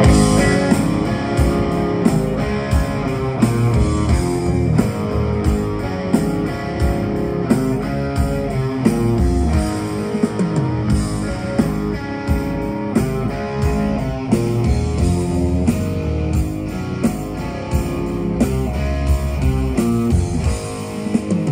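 Live rock band playing loud: distorted electric guitars, bass guitar and a drum kit kick in together all at once and play an instrumental passage over a steady drum beat.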